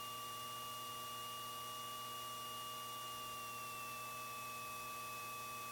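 Faint steady electrical hiss and hum from the cockpit intercom and radio audio line, with several constant whine tones; the highest dips slightly in pitch about three seconds in.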